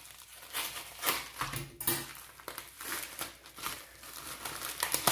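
Parcel packaging being handled and torn open: irregular crinkling and rustling with short crackling tears.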